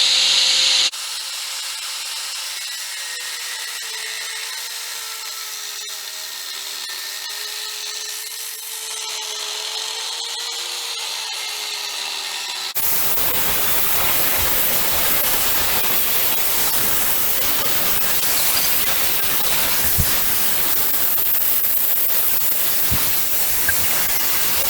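Power saw cutting into a two-stroke bicycle engine's case. First a steady motor whine whose pitch wavers slightly, then, after an abrupt change about 13 seconds in, a louder, harsher cutting noise.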